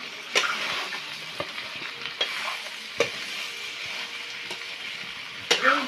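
Meat and potato pieces sizzling in a hot wok while a metal ladle stirs them. The ladle knocks and scrapes against the pan several times, with a louder clatter near the end.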